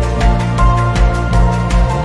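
Background music with a steady beat, about three strokes a second, over held notes and a pulsing bass.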